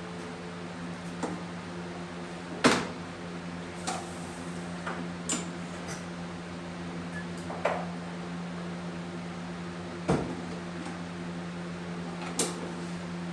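A handful of sharp knocks and clunks, about half a dozen, spread over a steady low hum; the loudest comes a few seconds in and another near the two-thirds mark.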